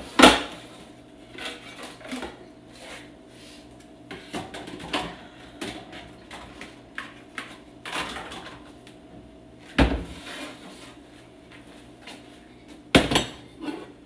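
Metal pots and pans clanking and scraping as they are pulled out of a lower kitchen cabinet and set on a stone countertop, with more rummaging among pans inside the cabinet. There are scattered knocks throughout, the loudest just after the start, about ten seconds in, and near the end.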